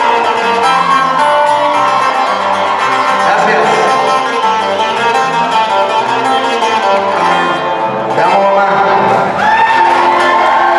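A live band of acoustic guitars and a bass guitar playing, with a man singing into a microphone over it, his voice most prominent near the end.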